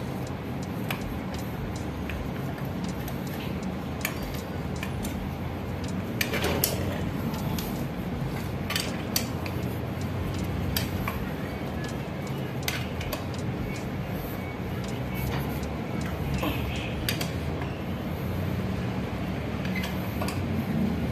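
Scattered metallic clicks and clinks of a hex key working the crank-arm bolt of a bicycle's square-taper bottom bracket, over steady background noise.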